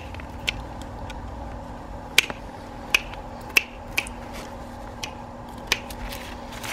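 Hand pruning secateurs snipping small twigs off a plum tree: a string of sharp, irregularly spaced clicks.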